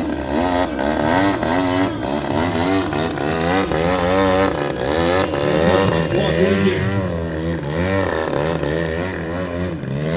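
Extra 300 aerobatic model plane's engine and propeller, pitch rising and falling rapidly over and over as the throttle is worked to hold the plane hanging nose-up in a torque roll.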